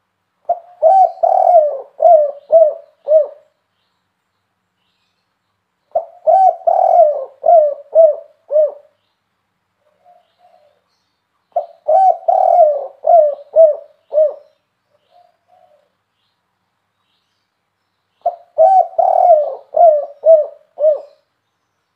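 Spotted dove (tekukur) cooing, a 'kuk 3' song in the Indonesian keepers' term. It gives four phrases, each a run of about five or six rising-and-falling coos, repeated every five to six seconds, with a few soft short notes between phrases.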